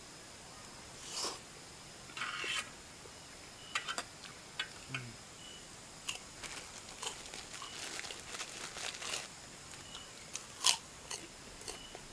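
Close-miked eating sounds of a person eating spicy instant noodles: irregular chewing, biting and wet mouth clicks.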